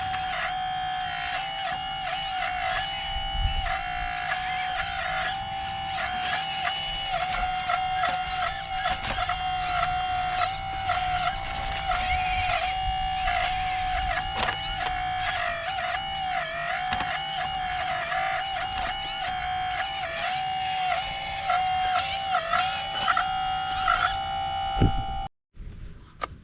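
RC excavator's electric hydraulic pump whining steadily, its pitch sagging briefly each time the hydraulics take load, over clicking and rattling from the working arm. It stops suddenly near the end.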